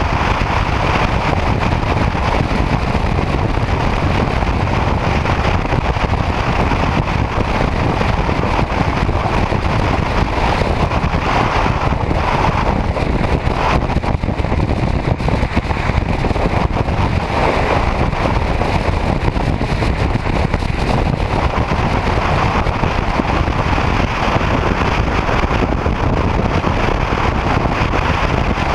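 Steady wind rushing over the microphone of a camera on a motorcycle moving at highway speed, with the bike's road and engine noise underneath.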